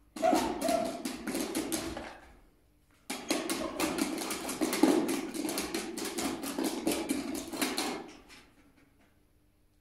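A dog working at a hard test object: quick, irregular tapping and clicking in two spells, the second about five seconds long.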